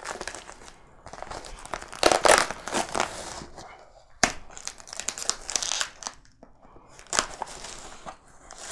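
Plastic packing bags being pulled out of a cardboard box, crinkling and rustling in several bursts with short pauses, loudest about two seconds in.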